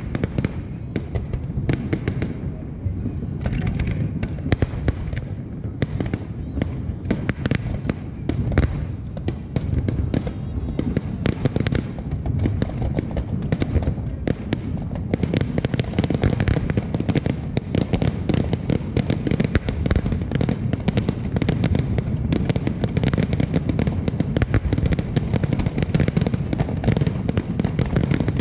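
Fireworks display: a continuous barrage of booms and crackles from aerial shells, packed tighter from about halfway through.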